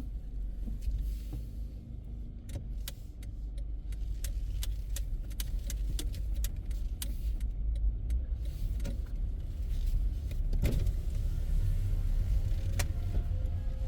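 Car cabin sound of a car driving slowly, a steady low engine and road rumble. Over the first eight seconds comes a run of short sharp ticks about twice a second, followed by two louder clicks later on.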